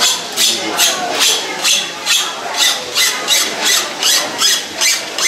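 Metal spatulas scraping on a flat-top griddle in a steady rhythm, about three strokes a second, over crowd chatter.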